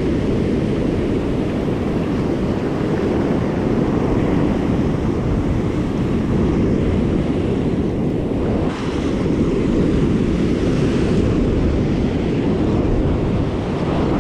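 Ocean surf breaking and washing up a sandy beach, with wind rumbling on the microphone. A louder hiss of surf swells up about nine seconds in.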